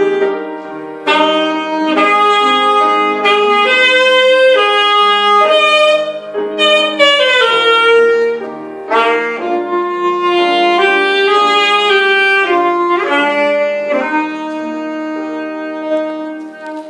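Saxophone playing a slow melody in long held notes over a lower sustained accompaniment, ending on a long held note in the last few seconds.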